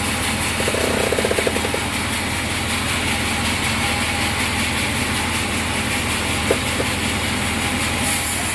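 Sawmill machinery running steadily with a constant engine-like hum and hiss. A short rapid rattle comes about a second in, and a single sharp click comes later.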